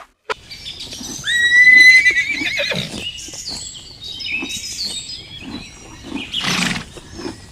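A horse neighing: one long, high whinny that wavers at its end, followed by shorter calls, then a breathy blast near the end.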